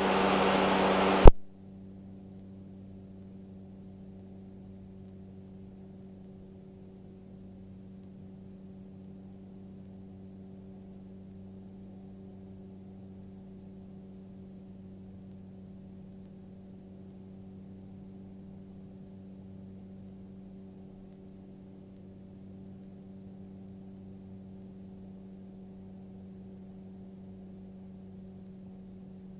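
Magni M24 gyroplane's engine and propeller heard as a steady, muffled low drone, as if through the aircraft's headset intercom. It opens with about a second of loud open-microphone hiss that cuts off with a click.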